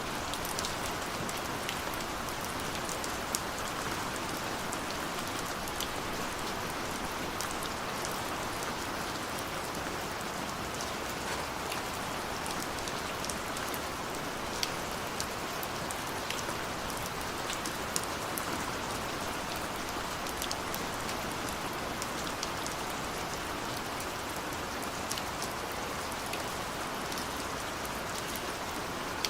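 Steady rain, a constant hiss with scattered sharp drop ticks, which the recording presents as rain on a window.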